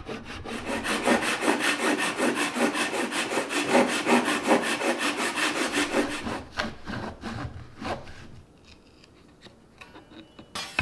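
Handsaw resawing a block of curly soft maple in half with rapid, even strokes; the sawing stops about six seconds in. After it, a few light scrapes and knocks as the saw and the sawn-off slab are lifted away.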